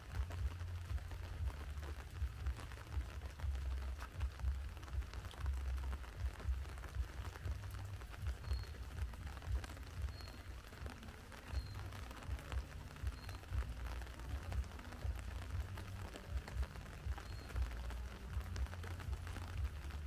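Outdoor ambience dominated by wind buffeting the microphone, with scattered light crackles and rustling. Five faint, short, high chirps come at uneven intervals through the middle of the stretch.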